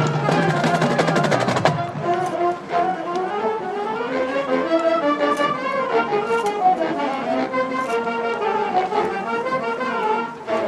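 High school marching band playing its field show: brass chords and melody over percussion. A dense flurry of rapid percussion strokes over the first two seconds gives way to moving brass lines.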